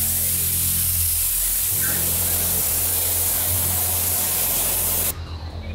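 Paint spray gun hissing as it sprays lacquer-based charcoal base coat onto a racing helmet, the air-and-paint hiss cutting off abruptly about five seconds in.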